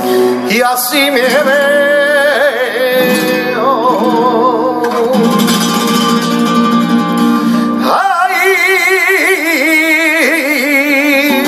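Male flamenco singer singing tangos, with wavering held notes and quick melismatic ornaments, over flamenco guitar accompaniment. A new, higher sung phrase begins about eight seconds in.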